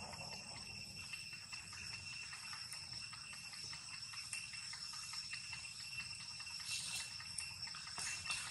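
Steady high-pitched insect chorus ringing on several even pitches, over a low steady rumble, with a few faint clicks late on.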